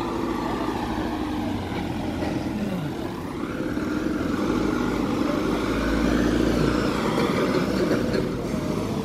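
A motor vehicle engine running steadily, its pitch dipping briefly a couple of times and the sound growing somewhat louder in the middle.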